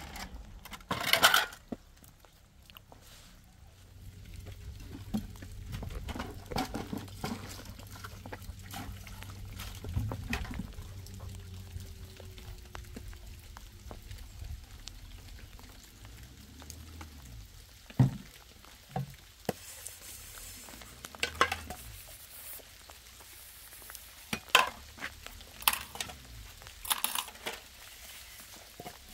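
Dishes being washed by hand in a plastic basin: irregular clinks, knocks and rattles of bowls and utensils, with a few louder knocks in the second half.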